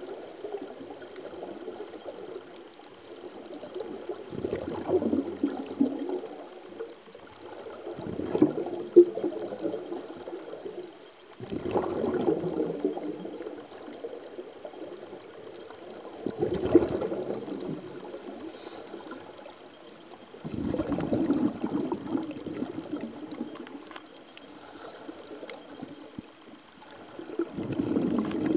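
Scuba divers' regulators venting exhaled air, heard underwater: a rush of bubbles on each out-breath, six times, every four seconds or so, over a low steady rushing of water.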